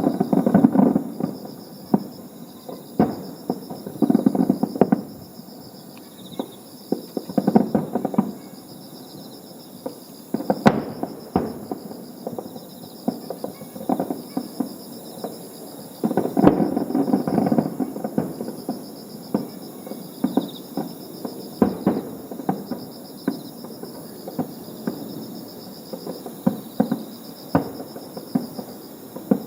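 Fireworks display: repeated booms of bursting shells with crackling and popping between them, heaviest about a second in, around four, seven and a half, and sixteen to eighteen seconds in. Insects trill steadily in the background.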